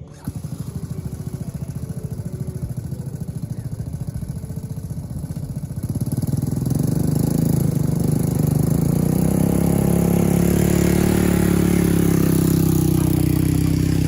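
Four-wheeler (ATV) engine running at a low, pulsing idle, then speeding up about six seconds in and running louder and higher for the rest of the stretch.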